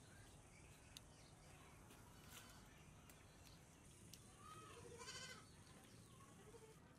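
Faint crackle of a wood fire with a few soft pops. About four and a half seconds in comes a short, wavering animal call lasting about a second, the loudest sound here.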